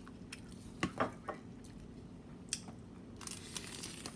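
Close-up wet eating sounds of someone chewing a taco: soft squishy smacks and a few sharp mouth clicks, with a short hissy rustle near the end.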